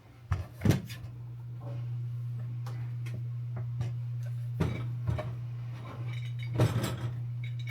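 Ninja Luxe Café Pro espresso machine running with a steady low hum while a shot is pulled, broken by several sharp clinks and knocks of the cup and portafilter being handled.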